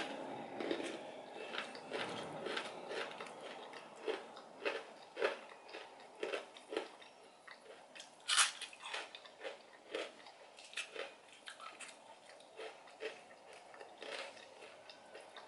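A person biting and chewing crunchy salad of raw lettuce and grated cassava, eaten by hand close to the microphone: a run of short crisp crunches, one or two a second, the loudest bite about eight seconds in.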